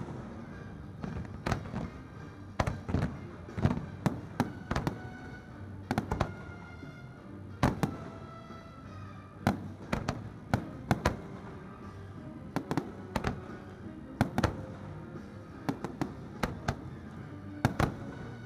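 Aerial fireworks shells bursting overhead in a steady, irregular barrage of sharp bangs, often several in quick succession, with music playing underneath.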